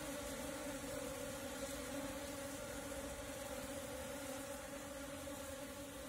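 A swarm of Asian honey bees (Apis cerana) humming steadily as a massed cluster.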